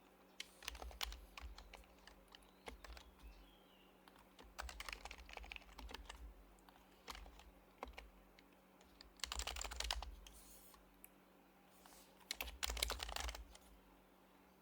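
Typing on an HHKB Professional HYBRID Type-S keyboard with its silenced Topre switches: keystrokes come in bursts with short pauses between them, and the densest, fastest runs fall about two-thirds of the way through and near the end.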